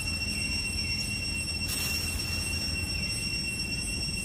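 Outdoor ambience: a steady high-pitched whine over a low rumble, with a short rustle of dry leaves a little under two seconds in.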